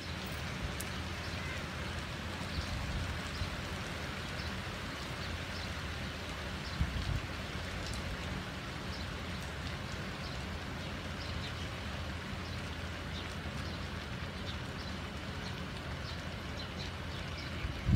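Steady rain falling on trees and paving, with scattered drip ticks over a low rumble. A brief low thump about seven seconds in.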